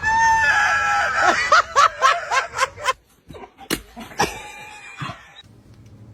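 A high-pitched scream held for about a second, breaking into a quick run of laughter, then a few short, sharp sounds.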